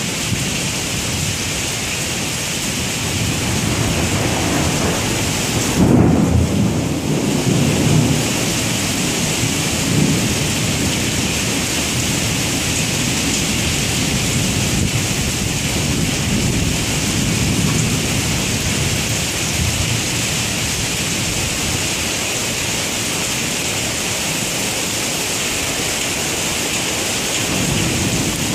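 Heavy rain pouring steadily onto pavement and grass, with deep rolls of thunder over it. The loudest rumble swells about six seconds in, and further, weaker rolls follow around ten seconds and again later on.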